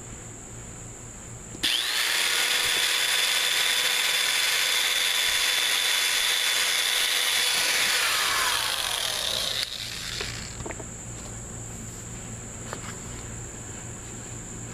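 Electric drill running at a steady speed, boring pilot holes in a cracked plastic fan shroud to take zip ties. It starts suddenly about a second and a half in, holds one pitch for several seconds, then winds down as the trigger is released.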